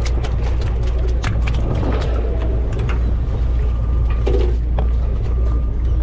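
Steady low rumble of a sportfishing boat's engine running, with scattered sharp clicks and knocks, thickest in the first two seconds and again about four seconds in.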